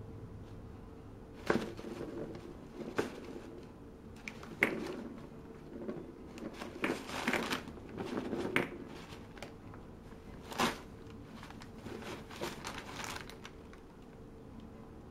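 Brown wrapping paper crinkling and rustling in a cardboard box as a cat paws and noses through it, in irregular sharp rustles with a busier stretch about halfway through.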